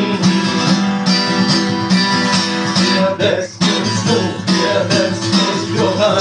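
Guitar strummed in a steady, driving rhythm, with a short break about three seconds in.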